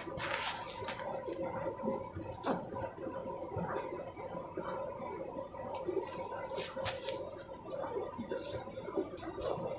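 Candy front-loading washing machine working a load of wet laundry: clothes squelching and water splashing in the drum in irregular bursts, over a steady hum.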